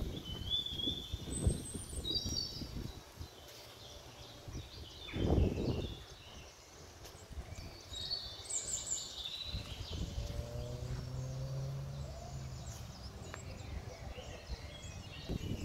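Outdoor ambience of birds chirping and calling at intervals, with wind gusting and rumbling on the microphone, strongest about five seconds in. A low steady drone sounds for about two seconds past the middle.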